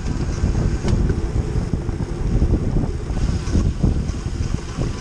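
Wind buffeting the microphone of a camera riding along with a bunch of road racing bicycles at speed, a steady low rushing, with the rolling noise of tyres on asphalt underneath and a faint click now and then.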